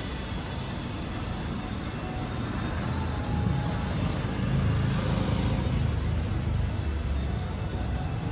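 Street traffic rumble, swelling as a vehicle passes close by from about three seconds in and easing off near the end.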